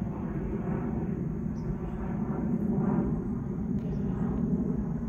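Steady low rumble of an airplane passing overhead, on a flight path.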